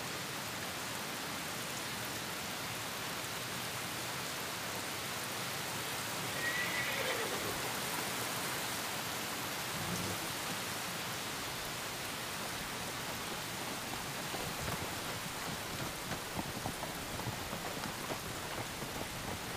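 Steady heavy rain, with a horse whinnying once about six seconds in. In the second half, scattered soft knocks join the rain.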